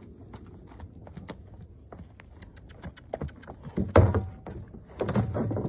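A horse's front hoof strikes a plastic barrel about four seconds in, a single loud thump, after a run of light hoof steps and knocks. More knocking and scraping of hoof on barrel follows near the end.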